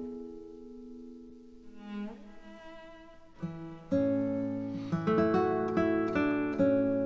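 Background music of plucked guitar notes. It starts sparse and fading, then grows fuller from about four seconds in, with a low bass note under the chords.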